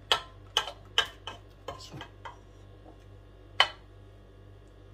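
Metal table knife clicking and knocking against a baking pan while spreading mayonnaise over a grated-cheese topping: about seven quick sharp clicks in the first two seconds, then one louder knock about three and a half seconds in.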